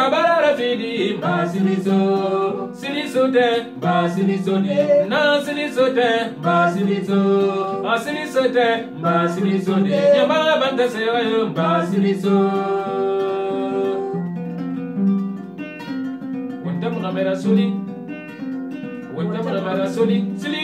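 Kora plucked in a repeating pattern under a man and a woman singing a song in Susu. Partway through, the voices pause for several seconds and the kora plays on alone, then the singing comes back in near the end.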